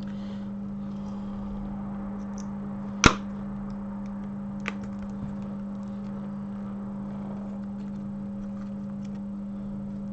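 A steady low electrical hum from bench equipment. A single sharp click comes about three seconds in, and a faint tick follows a couple of seconds later.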